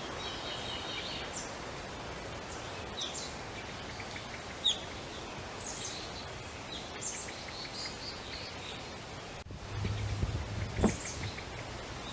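Small birds chirping now and then over a steady outdoor hiss, with a few low bumps about ten seconds in.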